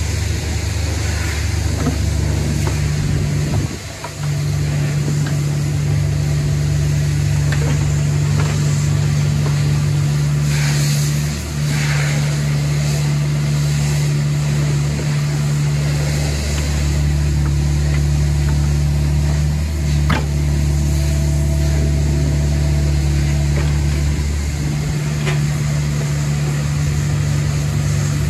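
Kubota U48 mini excavator's diesel engine running steadily while the boom, arm and bucket are worked, with a couple of brief dips in the engine note.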